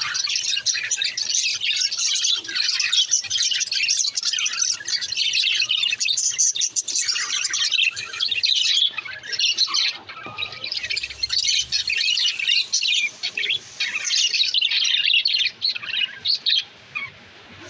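A flock of budgerigars chattering, many birds chirping and squawking at once in a dense, continuous warble; the chatter thins out near the end.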